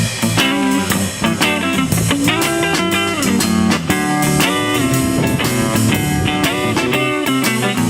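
A blues band playing an instrumental passage: an electric guitar plays a lead line with bent notes over bass and a drum kit.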